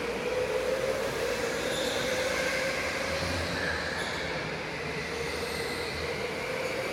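Electric racing karts running on an indoor track: a steady motor whine that drifts slightly in pitch, over a haze of tyre and track noise.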